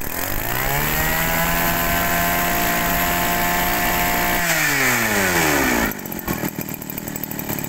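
A small petrol engine revs up, is held at high speed for about three seconds, then revs down and cuts off about six seconds in.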